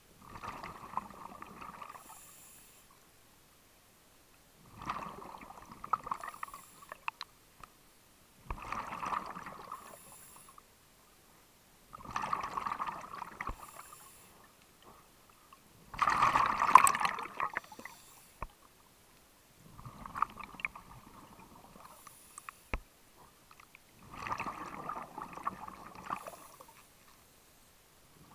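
Scuba diver breathing on a regulator underwater: bubbling exhalations about every four seconds, seven in all, each lasting around two seconds, with quiet gaps between.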